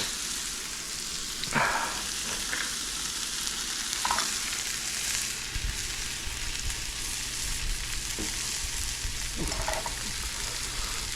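Sliced onions and bell peppers sizzling steadily in a hot pan as a sofrito base. The vegetables are stirred, with a few brief scrapes of the utensil against the pan.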